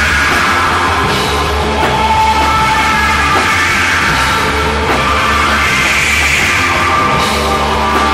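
Loud, dense heavy psychedelic rock with a steady low bass drone under a thick wash of guitar.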